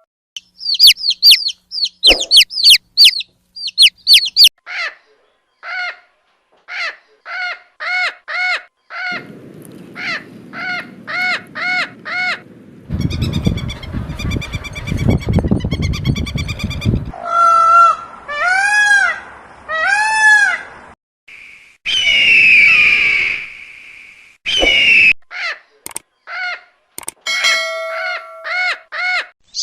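Different birds calling one after another. First come rapid, shrill, high calls. Then a long run of evenly repeated honks, about two a second. After that a dense, noisy stretch of many calls, three arching, rising-and-falling calls, and a few harsh calls.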